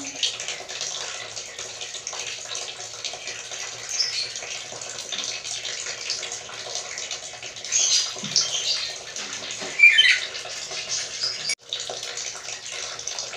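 Black-capped lory giving a few short, squeaky calls, about 4, 8 and 10 seconds in, over a steady hiss.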